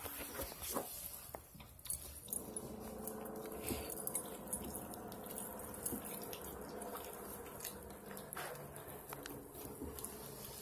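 A husky puppy gnawing on a partly frozen raw chicken drumstick, bone and all: scattered clicks and crunches of teeth on meat and bone. A steady hum runs underneath from about two seconds in.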